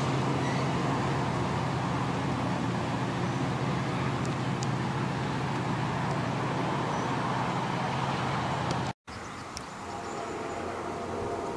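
A VRE commuter train hauled by an MPI MP36PH-3C diesel locomotive pulling away, with a steady diesel drone and rumble. The sound cuts off abruptly about nine seconds in and gives way to a much quieter background.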